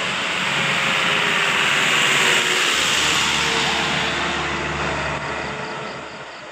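A bus driving past: engine and road noise swell to a peak about two seconds in, then fade away.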